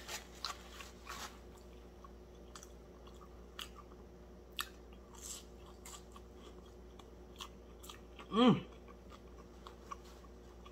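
A person chewing and biting breaded fried fish, with scattered soft crunches and mouth clicks. About eight seconds in comes a short hum of the voice that falls in pitch.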